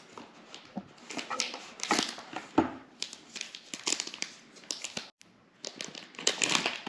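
Camera box packaging being opened and handled: irregular crinkling and rustling of plastic and cardboard, with a sharp knock about two and a half seconds in.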